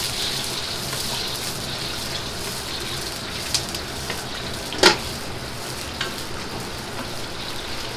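Hot oil sizzling steadily as food deep-fries in woks over a roaring gas burner. A few light metal clinks are heard, and about five seconds in there is one loud clank of a metal utensil against the wok.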